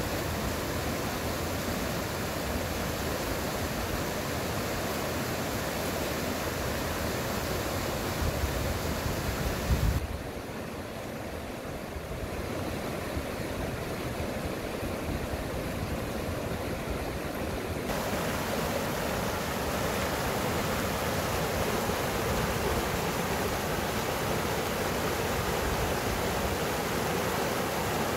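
Small mountain river rushing over rocks: a steady noise of flowing water. It turns abruptly duller and a little quieter about ten seconds in, and brightens again about eight seconds later.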